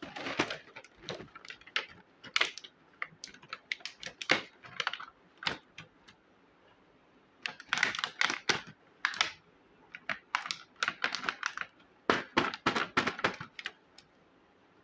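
Small plastic miniature toy kitchen pieces clicking and tapping as they are handled and set down, in bursts of quick light clicks separated by short pauses.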